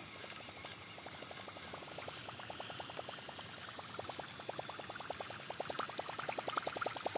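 Berkley Bucktooth Choppo topwater prop bait being retrieved across calm water, its spinning tail churning the surface in a fast, steady train of plops that grows louder toward the end as the lure nears the kayak.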